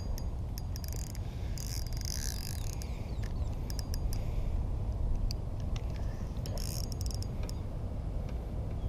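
Spinning reel's drag buzzing out line in several short bursts as a hooked fish pulls against light line, with scattered clicks from the reel between them as it is cranked.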